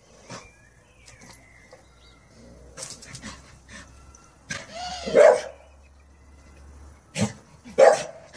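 Staffordshire bull terrier barking: one long, drawn-out bark about halfway through, then two short barks less than a second apart near the end.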